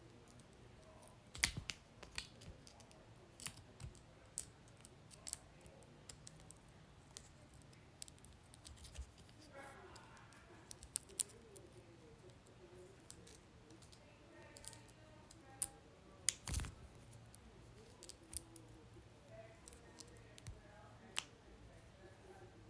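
Light clicks and ticks at irregular intervals, with louder ones about a second and a half in and again around sixteen seconds in.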